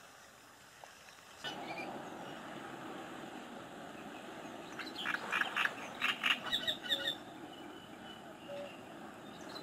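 Wetland outdoor ambience, a steady hiss that comes in abruptly about a second and a half in. About five seconds in, an animal in the reed bed calls in a rapid run of about a dozen short, harsh notes lasting about two seconds.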